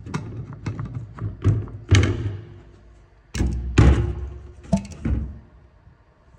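A run of knocks and thuds, several close together, the loudest about three and a half seconds in, ending about five seconds in.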